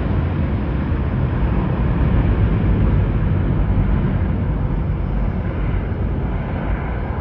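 Jet noise of a Boeing 777-9 climbing steeply away, its GE9X turbofans at high thrust: a steady, deep rumble that eases slightly near the end.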